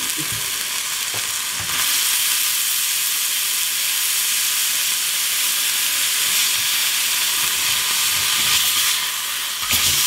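Burger patty and bacon sizzling steadily as they fry, growing louder about two seconds in.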